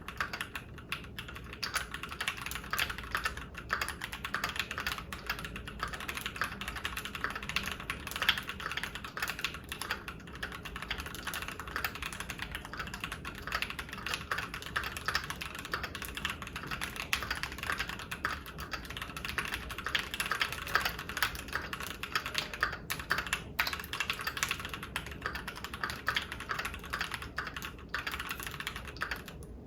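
Continuous fast typing on a Keychron Q1 V2 mechanical keyboard fitted with Keychron K Pro Brown tactile switches: a dense, steady stream of key clacks.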